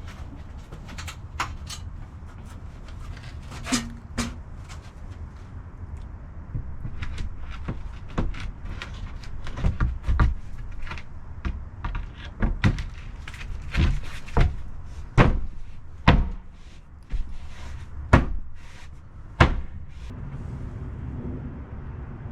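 Irregular knocks and thuds of window installation work, a vinyl window and its framing being handled and set into the opening, over a steady low rumble. The knocks come thicker and louder from about nine seconds in and stop a few seconds before the end.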